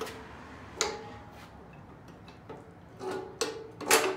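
Metal clanks and knocks as a gas tank is handled and fitted onto a small generator engine: a handful of sharp hits, some with a short metallic ring, the loudest near the end.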